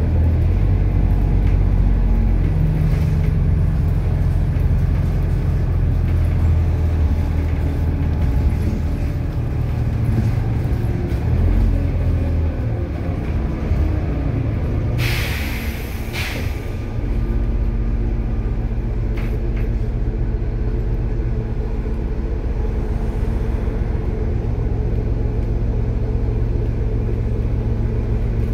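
Engine and road noise of a moving road vehicle heard from on board, a steady low drone, with a brief hiss about halfway through.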